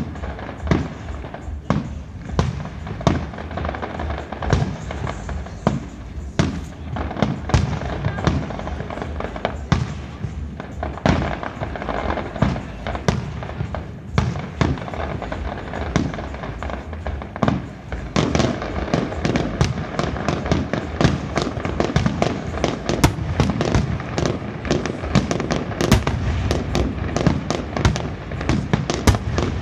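Aerial fireworks display: a rapid, continuous string of shell bursts and crackling bangs. It grows denser and louder about two-thirds of the way through.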